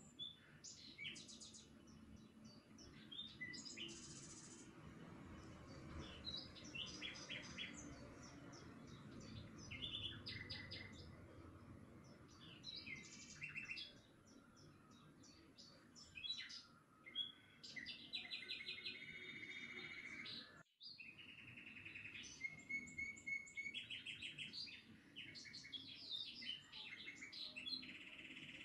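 Several small birds chirping and trilling in quick, overlapping bursts, faint, over a low steady outdoor background hum. The sound cuts out for an instant about two-thirds of the way through.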